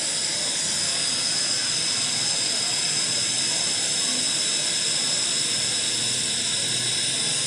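Steady hiss from the stove under a steel pot of milk just thinned with water as it heats back up toward the boil.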